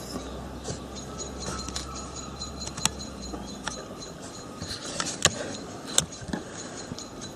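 Scattered light clicks and knocks of things being handled at a workbench, with a low hum in the first half that stops about halfway through.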